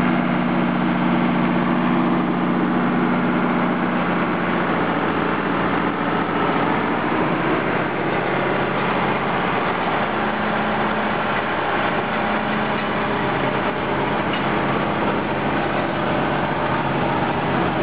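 Farm tractor's diesel engine running steadily at a constant speed, with a slight shift in its tone about four seconds in.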